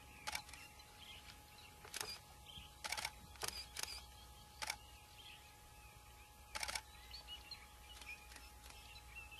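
Faint outdoor background with a steady low hum, broken by about seven short, soft clicks at uneven intervals.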